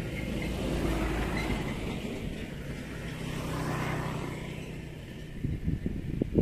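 Road traffic passing on a main road: the rumble of a few vehicles swelling and fading, with a low steady engine hum in the middle. A few sharp knocks near the end.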